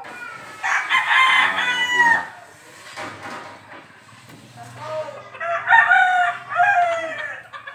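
A rooster crowing twice: one crow about half a second in and a longer one about five seconds in, each lasting about two seconds.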